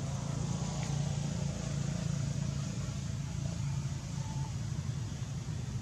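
A steady low engine hum, like a motor vehicle running.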